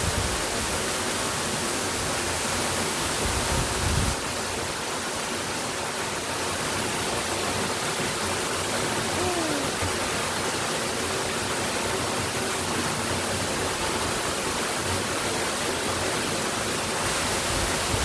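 Waterfall: a steady, even rush of falling water.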